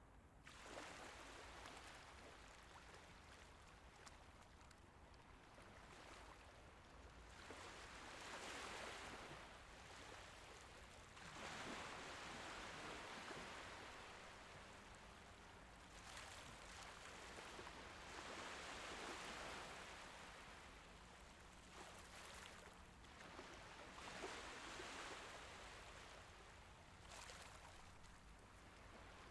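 Faint, calm Mediterranean Sea waves, a soft hiss of water that swells and fades every few seconds.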